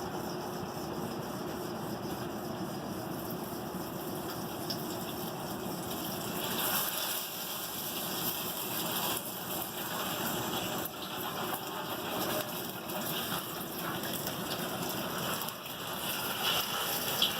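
Red-hot forged steel hammer head sizzling steadily in a quench oil bath as it is cooled and hardened.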